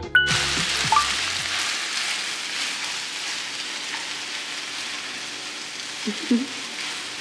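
Yaki udon frying in a hot pan: a steady sizzle that starts suddenly and slowly eases off.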